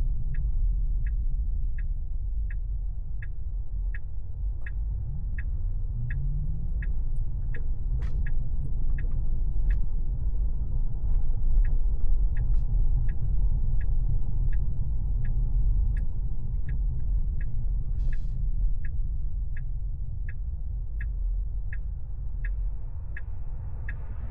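Turn-signal indicator ticking in a Tesla's cabin, about one and a half ticks a second, over a steady low road rumble.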